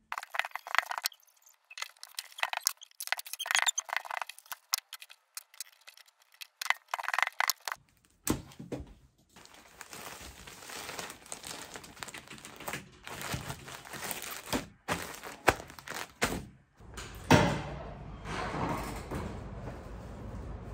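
Clear plastic packaging bag crinkling and rustling in sharp crackles as a folded knit cardigan is handled and slid into it. A sudden thump comes about 17 seconds in, followed by steady background noise.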